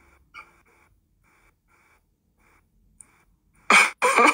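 Near silence with a faint murmur for most of the time, then a person's voice breaks in loudly near the end.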